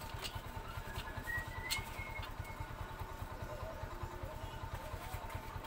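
A small engine idling with a steady, rapid low pulse, with a few faint clicks over it.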